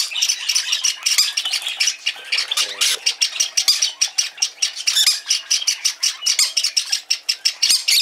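Peach-faced lovebird chick calling in a continuous stream of short, raspy squawks, several a second: the begging call of a hand-reared chick wanting to be fed.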